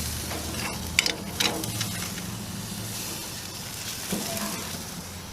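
Steak and vegetable kebabs sizzling on a grill, with a few sharp crackles about a second in.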